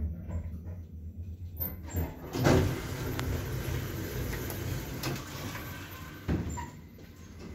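Passenger lift car running with a low hum that fades as it stops at the floor, then a clunk about two seconds in and the automatic sliding doors opening with a rolling, rattling rush. A single knock follows near the end.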